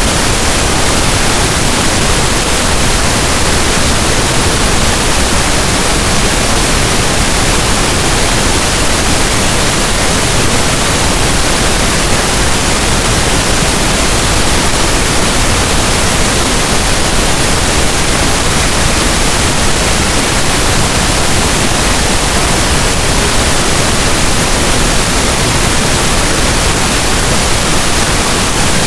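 Steady synthetic pink noise: an even, unbroken hiss across the whole range of pitch, with no changes in level.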